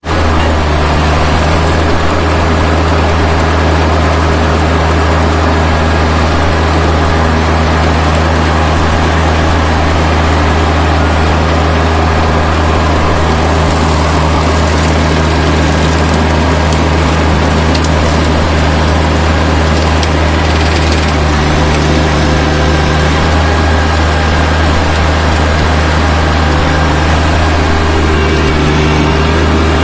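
Rural King RK24 subcompact tractor's engine running steadily at a constant speed, a loud low drone with no change in pitch.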